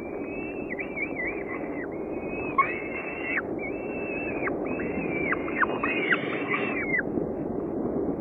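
Falcon chick begging during a feeding: a near-continuous series of high, thin calls, about a dozen in eight seconds, each held briefly and then dropping sharply in pitch at the end. A steady low rush of background noise runs underneath.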